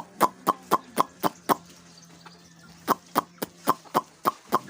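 Sharp knocks in a steady rhythm of about four a second, in two runs of about seven strikes with a pause between, over a faint steady low hum.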